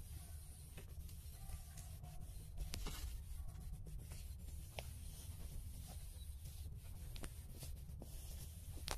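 Faint rubbing and scattered small clicks from the handheld phone being handled as it pans, over a steady low rumble.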